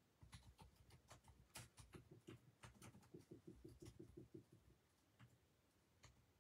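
Faint small clicks and scratches, with a quick run of soft taps, about eight a second, from about three seconds in. It goes quiet to room tone after about four and a half seconds.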